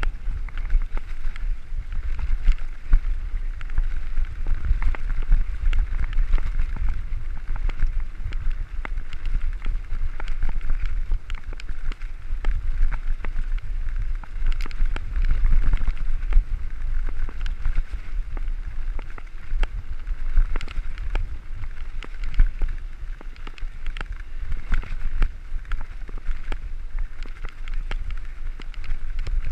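Mountain bike rolling fast over a dirt and gravel road: tyres crunching on the gravel, frequent small rattles and knocks from the bike over the bumps, and a steady low rumble of wind and vibration on the rider's camera microphone.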